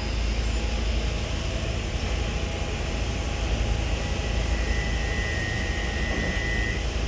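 Steady low rumble of a train running. A faint, thin high squeal comes in for about two seconds near the end.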